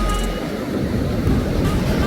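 Background music that thins out about half a second in, leaving a steady wash of breaking surf with faint music over it.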